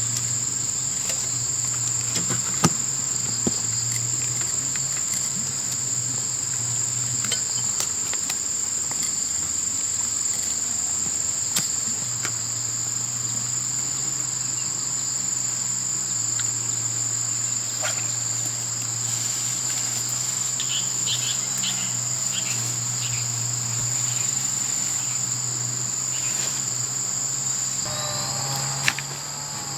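Continuous high-pitched insect chorus of cicadas or crickets, holding one steady shrill note, with a few sharp knocks from handling equipment.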